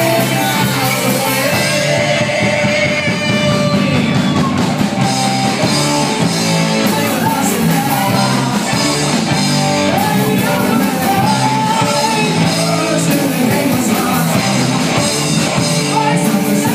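A live rock band playing an original song: electric guitars, bass and keyboard over drums, with a sung vocal line.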